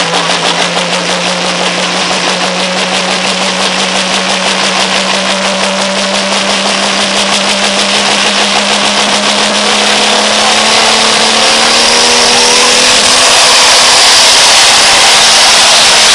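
Pulling tractor's diesel engine running hard under load from the weight sled, its pitch creeping slowly upward. About ten seconds in it turns louder, with a strong hissing rush over the engine note.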